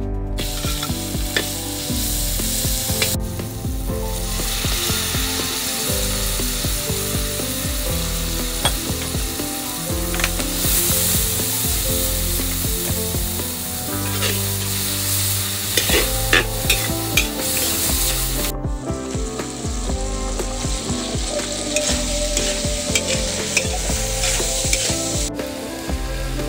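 Stir-fry sizzling in hot oil in a stainless steel wok, stirred with a metal spatula that clinks and scrapes against the pan now and then.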